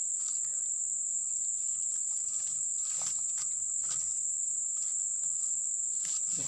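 A chorus of insects chirring in one steady, high-pitched drone, with a few faint clicks mixed in.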